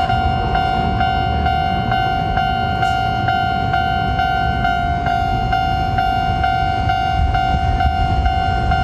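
Japanese electronic level-crossing alarm ringing its repeated 'kan-kan' tone at a little over two strikes a second. Underneath is a low rumble that grows near the end as a tram approaches.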